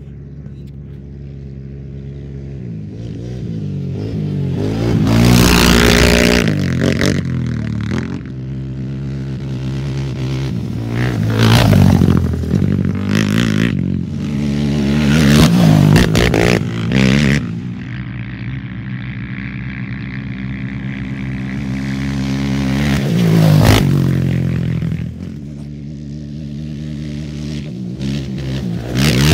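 Off-road race motorcycles and quads pass at speed one after another, about four or five times, engines revving high. Each pass swells in loudness and drops in pitch as it goes by.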